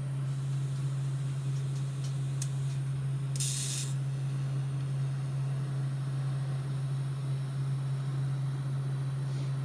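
Welder laying short welds on steel roll-cage tubing: a faint hissing crackle for the first few seconds, then a brief louder hiss about three and a half seconds in, over a steady low hum.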